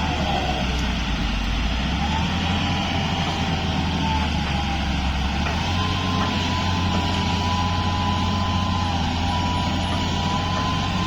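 Heavy diesel engine of an earthmoving machine running steadily under load, its note rising about two seconds in and again a little before the middle, with a thin wavering whine above it.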